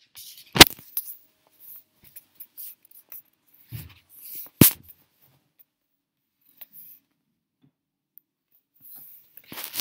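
Handling noise of a handheld phone: faint rustling of a jacket sleeve against it, with two sharp knocks about a second in and again about four and a half seconds in.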